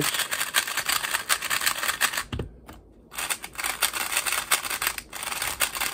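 Gan 12 Maglev UV 3x3 speedcube being turned fast: a rapid, dense run of clicking layer turns, broken by a short pause about two and a half seconds in. The cube is turning without locking up much.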